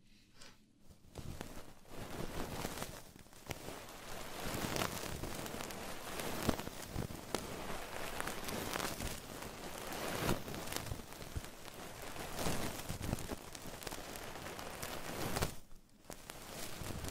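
Close-miked ASMR trigger sounds: dense crackling and rustling against the microphone, full of small clicks, breaking off briefly near the end.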